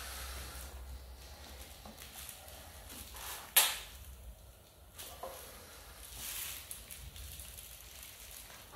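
New Pirelli Cinturato tubeless tyre being worked onto a Fulcrum Racing 6 DB rim by hand: the rubber bead rubs and scrapes against the rim, with one sharp snap about three and a half seconds in and a smaller click a little later.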